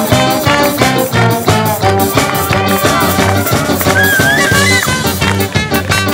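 A live band of saxophones, trumpets and tuba over electric guitar, bass guitar and drum kit playing an upbeat tune with a steady drum beat. A high melody line bends and wavers about four seconds in.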